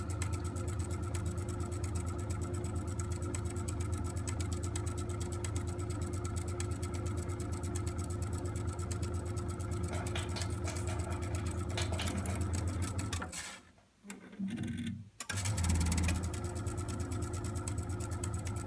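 Vaillant ecoTEC Plus 824 combi boiler's circulation pump running with a steady hum and a fast mechanical rattle. It fades out briefly past the middle, then starts again. The noise comes from a failing pump, which was later replaced to cure it.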